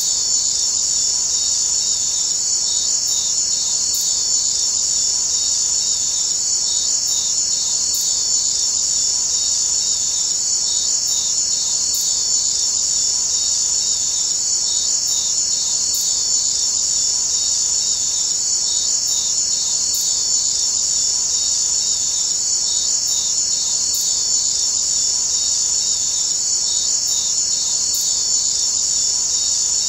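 Steady, high-pitched chirring of insects, with a faint click repeating about every four seconds.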